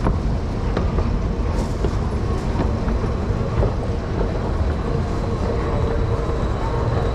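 Railway station ambience: a steady low rumble from the platforms and the escalator, with a faint steady tone coming in about five seconds in.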